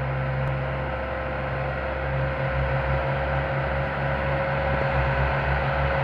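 Farm tractor's diesel engine working hard under load, pulling a heavily loaded sugarcane trolley: a steady drone with a low throbbing pulse that becomes stronger and a little louder from about two seconds in.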